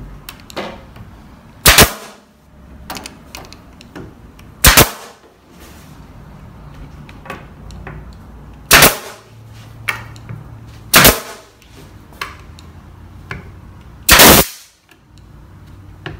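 Pneumatic stapler firing staples into a plywood cabinet back panel: five sharp shots a few seconds apart, with faint clicks between them.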